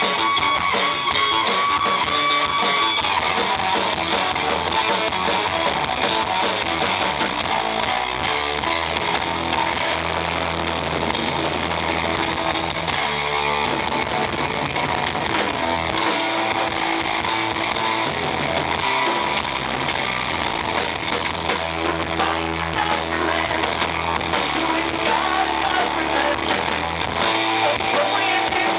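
A band playing rock music with guitar and drums, the recording heavily distorted.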